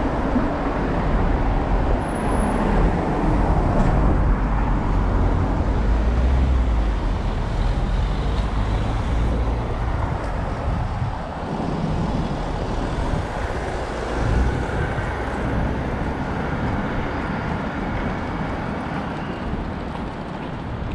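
City street traffic noise: a steady rumble of passing cars and other vehicles.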